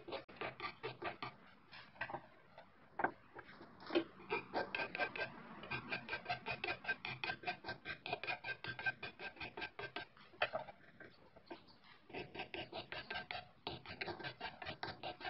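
Flat hand file stroked rapidly back and forth over a workpiece held in a bench vise, a dry rasping scrape several times a second. There are a few short pauses, one about two and a half seconds in and a longer one about two-thirds of the way through.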